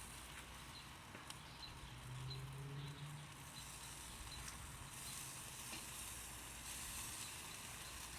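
Faint sizzling of pork on a charcoal grill, with barbecue sauce going onto the last side.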